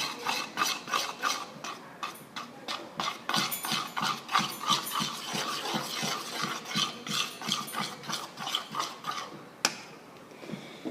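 Spoon stirring in a bowl, scraping and clinking about three strokes a second as baking soda is mixed into the slime base, ending with one sharp knock of the spoon near the end.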